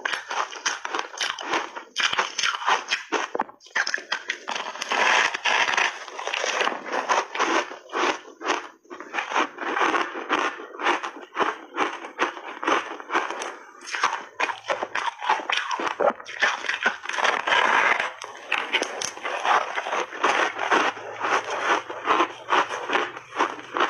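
Close-miked chewing of a frozen ice block coated in milk powder: a dense, rapid run of crunches and crackles as the ice is bitten and ground between the teeth.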